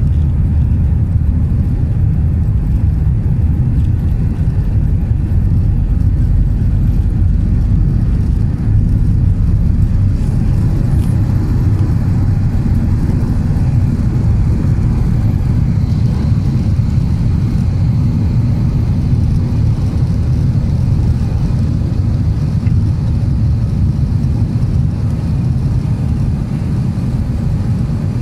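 Airliner cabin noise during takeoff, heard from a window seat over the wing: the jet engines at takeoff power with the rumble of the takeoff roll, carrying on into the climb-out as one steady, loud, low rumble.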